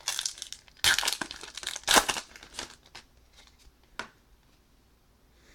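Trading-card pack wrapper being torn open and crinkled by hand, in a run of loud rustling bursts over the first few seconds, followed by a single sharp tick at about four seconds as the cards come out.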